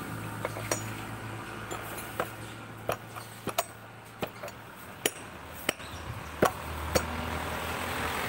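Sharp metal clinks and taps, about a dozen at an uneven pace: a 19 mm socket on an extension bar being tapped down onto a new bearing to seat it in a Honda Vario's CVT pulley.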